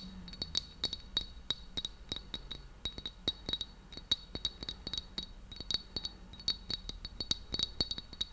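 A small cup tapped by fingers right at the microphone: quick, irregular clinks, several a second, each with a short high ringing tone.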